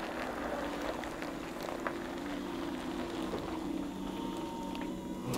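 Scania battery-electric truck working with a low, steady hum and a few light clicks; a thin steady whine joins about four seconds in.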